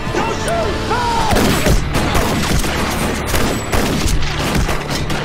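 A barrage of handgun fire, many shots in quick succession starting about a second in.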